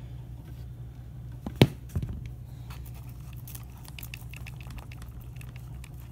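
Small clicks and taps of hands working at an RC car's steering servo horn, with one sharp click about a second and a half in and a second just after. A low steady hum runs underneath.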